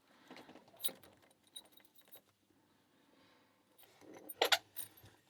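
Small Burg Wächter C-line 15mm padlock and its key being handled: light metallic rattling with a sharp click about a second in and a louder one about four and a half seconds in.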